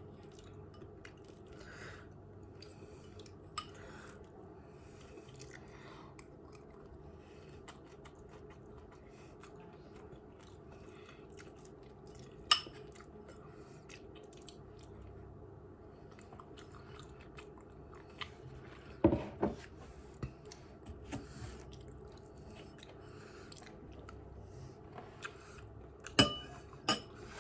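A person chewing and eating chicken pot pie with hash browns, with a few sharp clinks of cutlery against a dish over a low steady hum.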